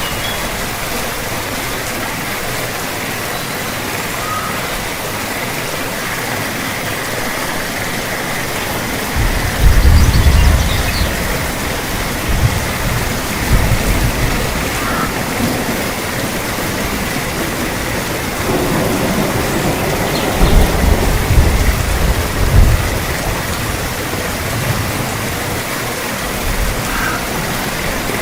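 Steady rain pouring in a thunderstorm, with deep rolls of thunder. The thunder swells about a third of the way in, rumbles again shortly after, and rolls longer around two thirds of the way in.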